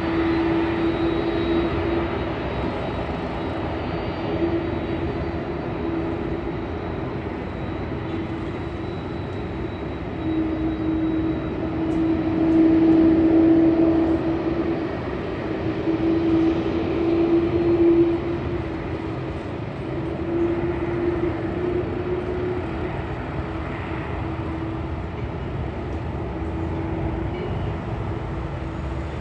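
Airplane engine running steadily, a rumbling roar with a held hum that wavers slightly in pitch. It grows louder about a third of the way in, peaks twice, then settles back.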